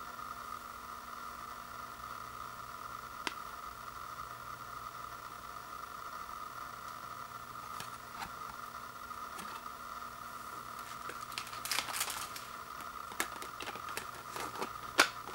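Clicks and plastic handling noises as a disc is pressed onto the centre hub of a plastic Blu-ray case, with a cluster of clicks about 12 s in and the sharpest snap near the end. A steady faint high hum and hiss runs underneath.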